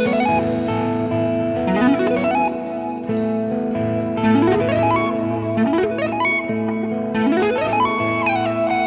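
Electric guitar played with two-handed tapping over a backing track, a repeating phrase of rising slides over held notes.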